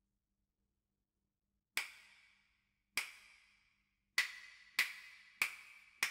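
A count-in of six sharp clicks: two spaced about a second apart, then four quicker ones. Each click rings briefly.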